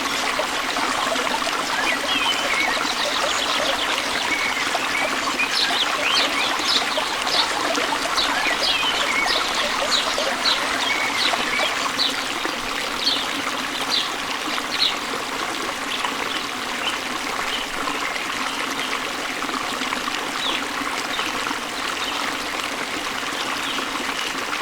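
Stream water trickling steadily, with a bird giving a run of short, high, repeated chirps through the first half or so.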